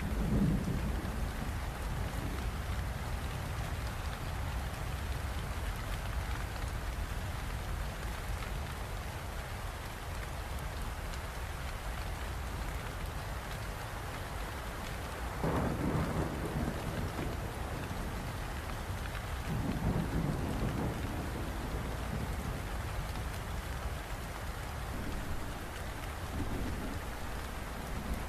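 Steady rain falling, with several low rolls of thunder: one at the start, the strongest about halfway through, another a few seconds later, and fainter ones near the end.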